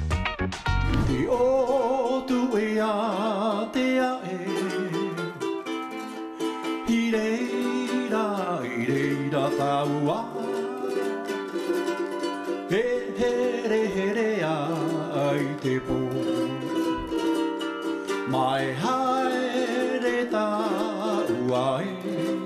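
A man singing with a wavering vibrato to his own ukulele accompaniment.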